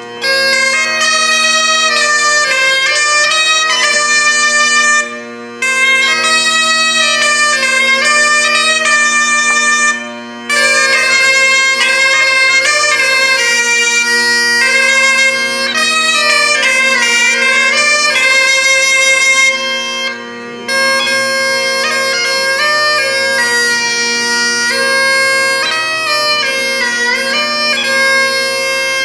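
Bagpipe and bombarde playing a Breton carol tune together: steady bagpipe drones under a reedy melody line. The melody breaks off briefly three times, about 5, 10 and 20 seconds in, while the drones sound on.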